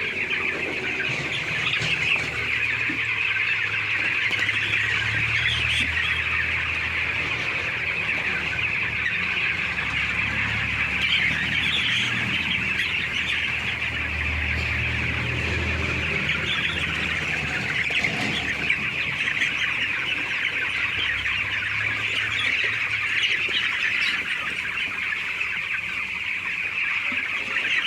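A large flock of chickens in a poultry house calling all at once, a continuous dense chatter of overlapping calls. A low hum comes and goes underneath.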